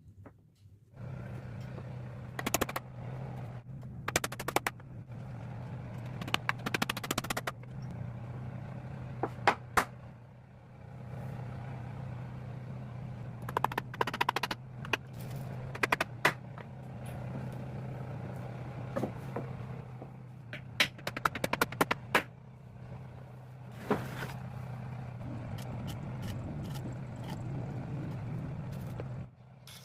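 An electric power tool's motor running steadily, briefly stopping and restarting about ten seconds in, with repeated sharp knocks and clatter on wood over it.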